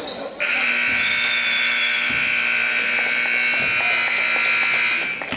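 Gym scoreboard buzzer sounding one long, steady blast of nearly five seconds that starts about half a second in and cuts off suddenly near the end.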